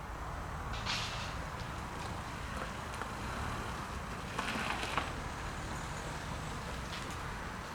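Airbus A319CJ jet engines running as a steady low rumble, with two brief hissing swells, one about a second in and one around four and a half seconds.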